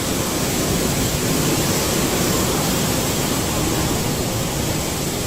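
Steady, even rush of typhoon wind and rain.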